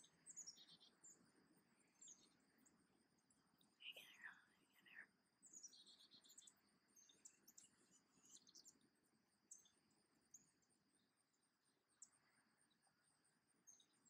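Faint bird chirps and twittering, with a louder call sliding downward about four seconds in, over a steady high insect drone.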